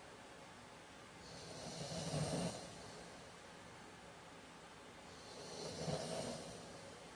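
A man snoring in his sleep: two snores about four seconds apart, each a little over a second long, with a low rattle under a breathy hiss.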